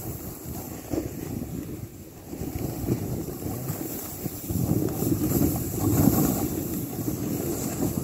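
Wind buffeting the microphone in uneven gusts while a snowboard rides down through deep powder, the board hissing faintly through the snow; the gusting grows louder in the second half.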